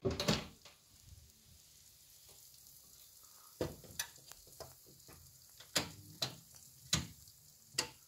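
Oven door pulled open with a loud clunk, then the faint hiss of the hot oven, where cheese-topped bread slices are baking on a paper-lined tray, broken by a scattering of sharp sizzling pops and crackles.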